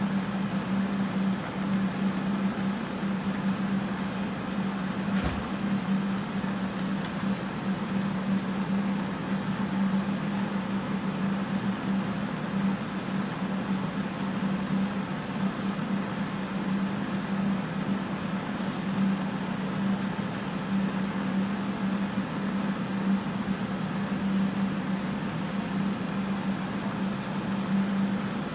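Electric fans running for soldering fume extraction: a steady rushing noise with a constant low hum. A light tap about five seconds in.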